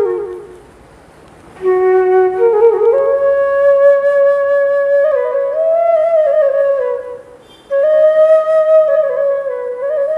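Bamboo flute (bansuri) playing a slow, sad melody of long held notes that slide up and down. A phrase dies away at the start and there is a pause of about a second before the next begins. There is another short break about seven seconds in.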